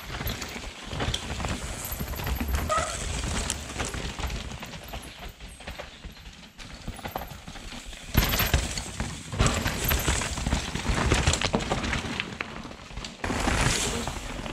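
Mountain bikes rolling over a rocky dirt trail: knobbly tyres crunching on dirt and stones, with the bikes rattling. It is loudest when a rider passes close about eight seconds in, and again near the end.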